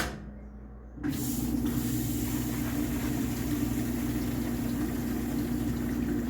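A washing machine's drain pump switches on with a click, then hums steadily about a second in as it pumps water out with a rushing hiss. The water is going into a partly clogged standpipe drain.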